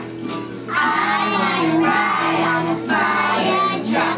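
Young children singing a song together, in sung phrases with short breaks between them.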